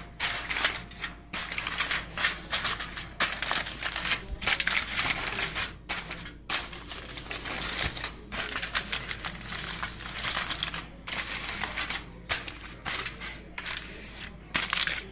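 Aluminium foil crinkling and crackling in irregular bursts as it is pressed down to cover a baking pan.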